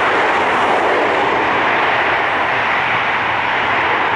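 Boeing 767-300 jet engines roaring steadily as the airliner rolls out along the runway after touchdown, easing slightly after about a second.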